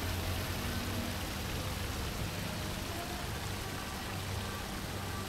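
Tiered fountain splashing steadily into its basin, a constant rush of falling water. Background music fades out under it in about the first second.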